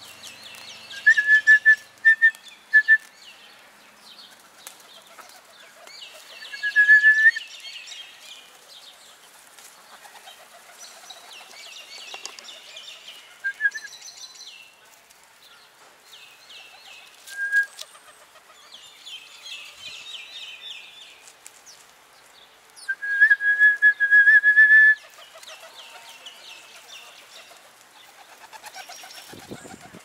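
Birds calling in short spells of rapid high chattering notes, with loud clear held notes about a second in, around seven seconds and again near the end. Just before the end comes a flurry of wing flaps as pigeons take off.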